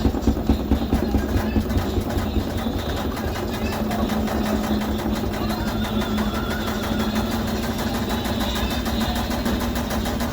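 LG commercial washing machine running its drum, a steady motor hum with a fast, even pulsing.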